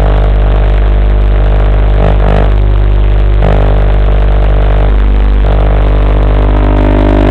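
Loud steady electrical buzz from an analog FPV video link's audio channel, many fixed tones stacked together.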